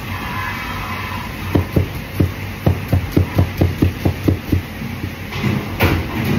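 Broad-bladed knife slicing a tomato on a plastic cutting board: a quick run of knocks on the board, about four to five a second, over a steady low hum. A short louder noise comes near the end.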